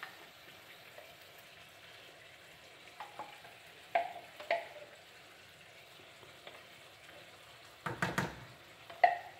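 Ground meat in enchilada sauce sizzling softly in a frying pan while a spoon scrapes canned chili out of a tin can into it, with about five sharp, briefly ringing knocks of spoon on can and pan, the loudest near the end.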